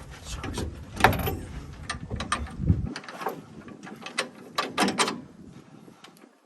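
Hand tools and steel suspension parts being worked on a pickup's front suspension: irregular metallic clicks and clanks, with a low rumble under the first three seconds.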